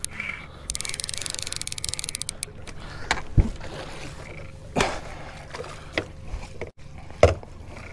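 Boat motor running steadily under a quick run of rapid clicks lasting about two seconds, followed by four sharp knocks spaced about a second apart.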